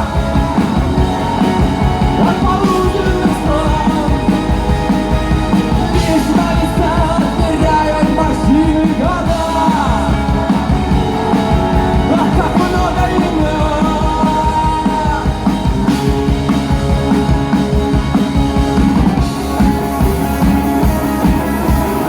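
A band playing a rock song, with singing over guitar and drums.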